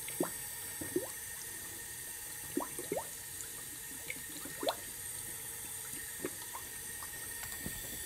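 Air bubbles gurgling and popping up through the coolant in a radiator fill funnel, in irregular short bloops over a steady hiss. Compressed air fed into cylinder 3 in a leak-down test is coming out in the cooling system, the sign of a leaking head gasket.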